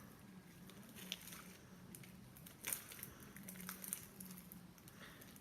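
Sticky homemade slime being kneaded and pulled off a bowl by hand: faint squelching and crackling, with one louder crackle about two and a half seconds in. A steady low hum runs underneath.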